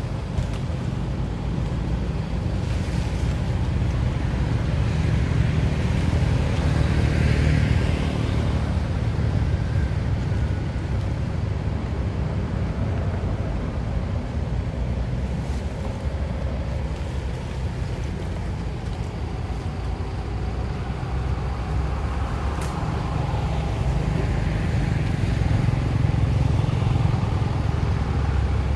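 Outdoor road traffic: a steady low rumble with vehicles passing, swelling up and fading away about a quarter of the way in and again near the end.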